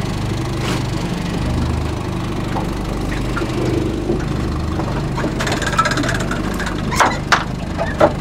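Boat's outboard engine idling steadily. A few sharp knocks and clicks come in the last few seconds.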